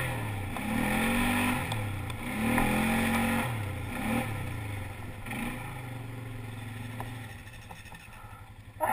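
Quad ATV engine revving up and down as the throttle is worked over rough ground. About seven seconds in it drops to a low, steady putter as the machine slows.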